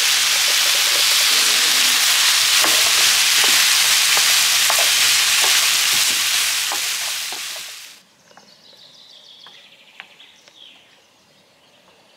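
Chicken and diced vegetables sizzling in a frying pan, stirred with a wooden spoon that scrapes and taps against the pan. About eight seconds in, the sizzle drops away abruptly, leaving a faint background with a few light taps.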